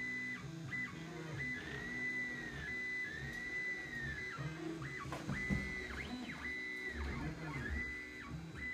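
Printrbot 3D printer's stepper motors singing as they drive the print head and bed through a print: pitched whines that slide up and down as each move speeds up and slows, broken by short pauses between moves. A brief knock about halfway through.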